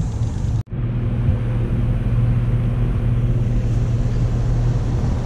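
Pontoon boat's outboard motor running steadily underway: a low, even drone over a rush of wind and water. The sound drops out for an instant about half a second in, then carries on unchanged.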